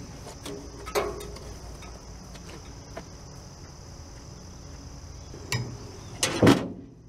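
Crickets chirring in a steady, high, even drone, with a few sharp clicks and a loud thump about six and a half seconds in; the chirring stops abruptly just before the end.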